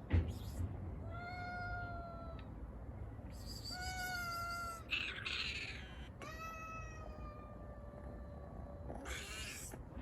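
A kitten meowing three times, the third meow long and drawn out, with short breathy noises just before the first meow, between the second and third, and near the end.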